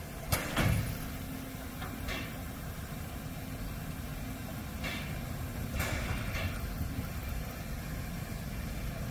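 Narrow-gauge 2-10-2T steam locomotive standing at the platform, giving a steady low rumble. Several short sharp hisses or knocks cut through it, the loudest about half a second in.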